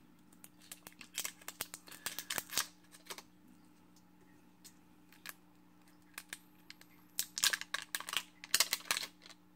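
Plastic shrink-wrap safety seal being picked at and torn off an e-liquid bottle's cap: irregular crinkling and small sharp clicks in two spells, one in the first three seconds and another near the end.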